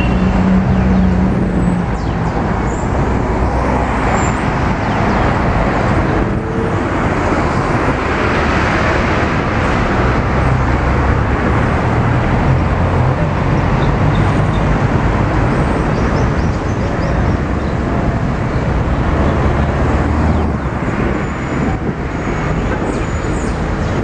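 Steady city street traffic: cars and a bus driving past with their engines running, a constant roadway noise with a deeper engine hum through the middle stretch.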